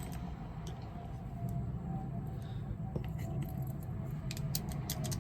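Small metal padlock parts being handled and fitted together, giving scattered light clicks, most of them in the second half, over a steady low hum.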